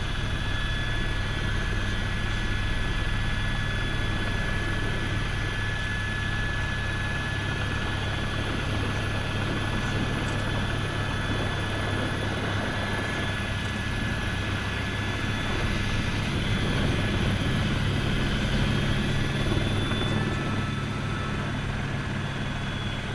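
Helicopter turbine engine and rotor running steadily, heard from inside the cabin, as the helicopter sets down on snow. A high turbine whine drops slightly in pitch near the end.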